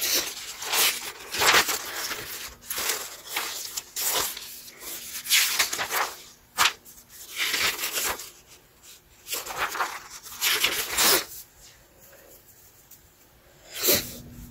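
Irregular rustling and rubbing close to the microphone: a string of short scraping strokes that thin out after about eleven seconds, with one more near the end.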